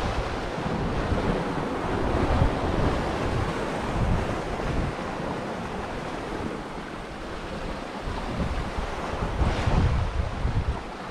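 Sea surf washing steadily, with wind buffeting the microphone in gusts.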